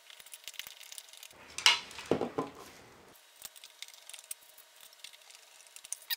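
Small steel machine screws clinking and hard 3D-printed plastic parts clicking as they are picked up and handled, in a run of light clicks with a louder clatter about one and a half seconds in.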